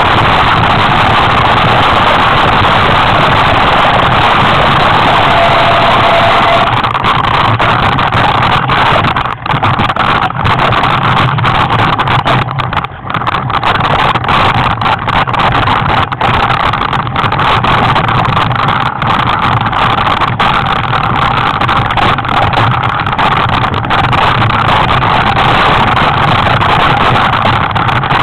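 Steady, loud wind noise buffeting a helmet camera's microphone, dipping briefly a couple of times.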